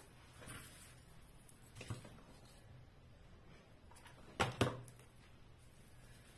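Quiet crafting handling noise of a hot glue gun and plastic ornament balls being worked onto a tinsel wreath: soft rustles, then two sharp clicks in quick succession a little past halfway.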